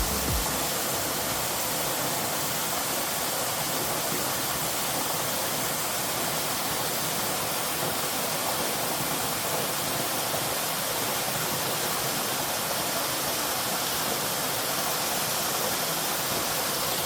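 Waterfall pouring steadily, a constant rush of water swollen by heavy rain.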